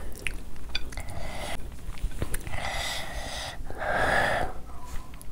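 A person eating takes four or five noisy breaths through the mouth in a row, with a few small mouth clicks from chewing in the first second.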